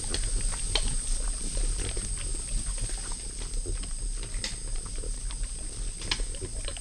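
White-lipped peccaries feeding on fruit: a stream of short crunching and clicking chewing sounds, over low grunting.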